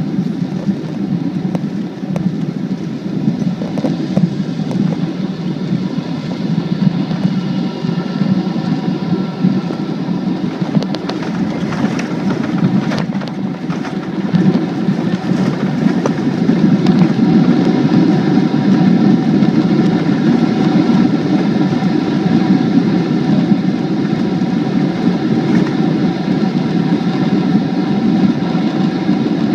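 Airliner landing: steady jet-engine and airflow rumble with several steady whining tones above it. A few sharp knocks come about 11 to 13 seconds in, and the rumble grows louder from about 16 seconds in.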